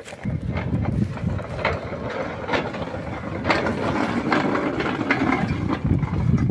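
Small rail wagon's metal flanged wheels rolling along narrow gauge track and over a homemade diamond crossing: a steady rumble with a clack every half second or so as the wheels cross the gaps and joints in the rails.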